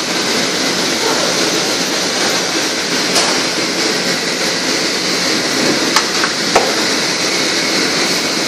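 Steady roar of a commercial gas stove burner under a large pot, with a couple of sharp knocks about six seconds in as a long paddle strikes the aluminium pot while stirring rice.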